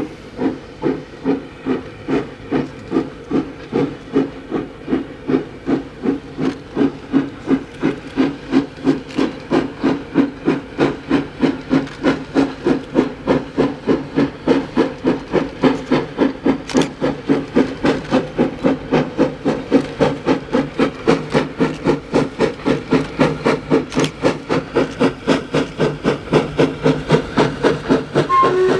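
Vulcan Foundry B2B steam locomotive No. 213 working hard as it accelerates a heavy mixed train from a standstill. Its chimney gives sharp, regular exhaust beats that quicken steadily from about two a second to about three a second.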